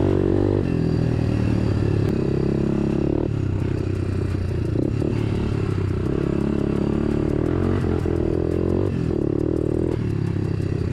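Dirt bike engine running on a trail, its note stepping up and down as the throttle opens and closes, with some rattle from the bike.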